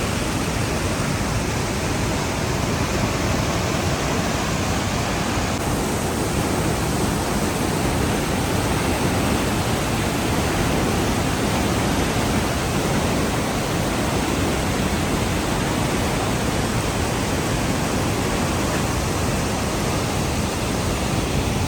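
Waterfall rushing close by, a steady, loud roar of falling water.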